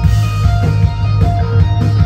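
Live instrumental rock band playing: an electric guitar plays a melodic line of short held notes over bass guitar and drums.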